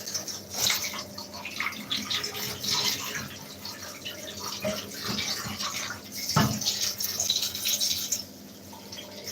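Dirty water pouring and splashing out of a Dyson vacuum part into a bathtub, unevenly, with a single knock about six and a half seconds in.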